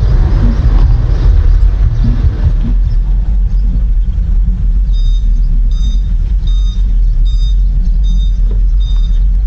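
Steady low rumble of a vehicle driving along a road, with road and wind noise. From about halfway, a short high beep repeats roughly every three-quarters of a second.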